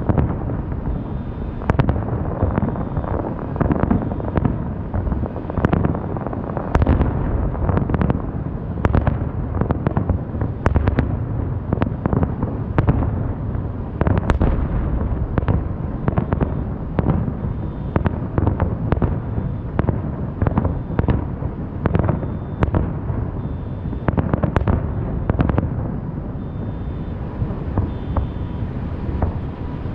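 Aerial fireworks going off in a rapid, continuous barrage: many sharp bangs and cracks a second over a steady low rumble of booms.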